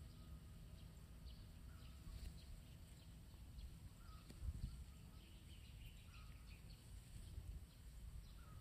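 Near silence: faint outdoor ambience with a low rumble and a few faint bird chirps, and a brief bump of a phone being handled about four and a half seconds in.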